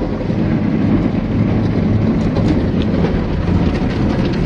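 Automatic car wash going over the car, heard from inside the cabin: rotating wash brushes and water spray beating steadily on the windshield and body, a loud continuous rumble with scattered small ticks.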